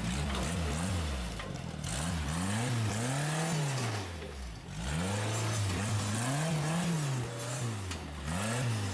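Rock crawler buggy's engine revved up and down in repeated throttle blips, roughly one a second, as it crawls over boulders, with a short lull about halfway through.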